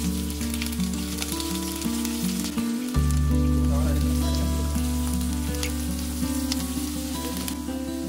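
Hot oil sizzling and crackling in a frying pan, over background music with a steady bass line that breaks off briefly about three seconds in.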